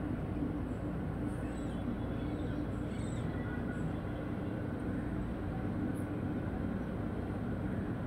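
Steady low background rumble with a faint constant hum, like distant traffic, and a couple of faint high chirps about three seconds in.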